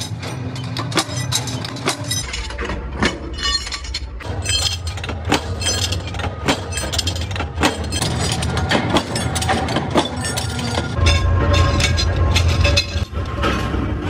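Power press shearing flat steel bar into rotavator blade blanks: heavy metallic clanks about once a second, with cut steel pieces clinking and clattering onto a pile. Under them runs the machine's low hum, which grows louder near the end.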